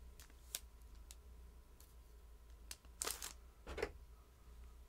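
Light scattered clicks, then a short burst of rustling and clicking about three seconds in: small items being handled and sorted by hand.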